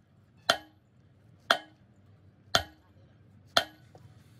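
Hammer striking metal four times, about once a second, each blow ringing briefly.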